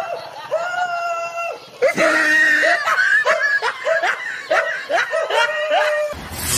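High-pitched laughter: a few drawn-out notes, then a quick run of short laughs, about four a second, from about three seconds in.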